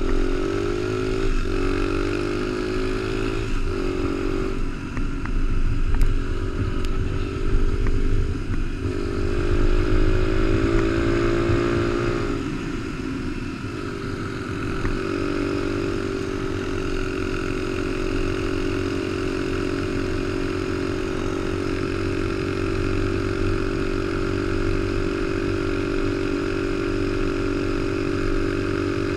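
Honda XR100 mini bike's single-cylinder four-stroke engine, heard on board while riding. Its pitch climbs and breaks off several times through gear changes in the first half, then holds steady at a cruising speed over a low rush of wind and tyres.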